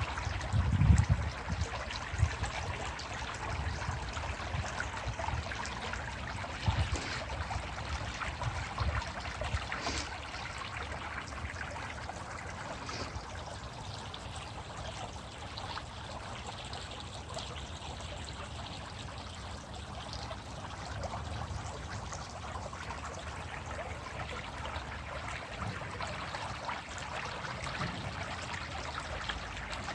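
Stream water flowing and trickling over rocks, a steady rushing, with occasional low thumps during the first ten seconds or so.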